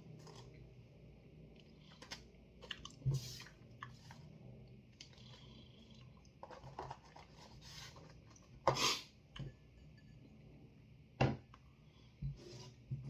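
Close-up mouth sounds of chewing chocolate, with scattered wet clicks and a few sharper knocks. The loudest is a short noisy burst about nine seconds in.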